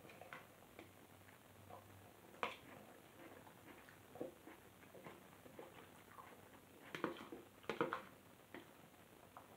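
Quiet eating sounds: a person chewing with small mouth noises, and a few light clicks and scrapes of a fork against a bowl, the sharpest about two and a half seconds in and a cluster around seven to eight seconds in.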